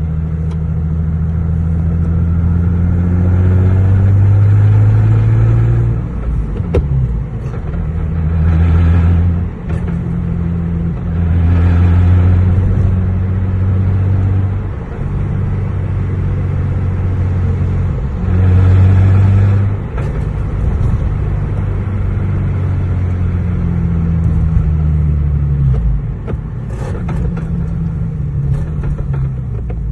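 Lexus GS 300's engine heard while driving, accelerating through the gears of a swapped-in ZF manual gearbox: the engine pitch rises, then drops at each gear change, several times over.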